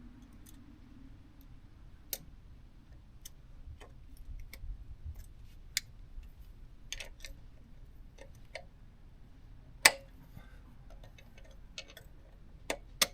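Irregular light metal clicks and taps of hand tools, such as pliers, working a cotter pin into the motorcycle's rear axle nut, with one sharper click about ten seconds in.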